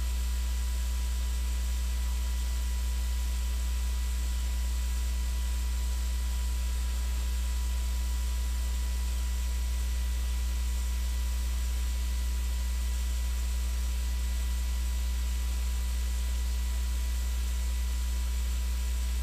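Steady low electrical mains hum with an even hiss and faint steady higher tones, unchanging throughout: the background noise of the audio recording, with no other sound.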